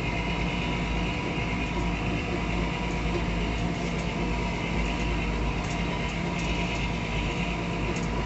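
Steady drone of engines and machinery from a sugarcane harvester cutting cane and blowing the chopped billets into a wagon running alongside, heard through the windscreen of a vehicle following it.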